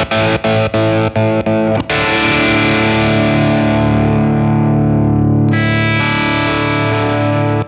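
Distorted electric guitar through a kill switch pedal. A held chord is chopped on and off about three times a second, then left to ring and slowly fade from about two seconds in, with a higher note added over it about two seconds before the end.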